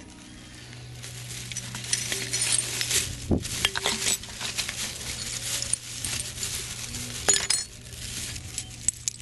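Hands rummaging through grass and handling bits of litter: irregular rustling and crinkling with scattered small clinks and taps.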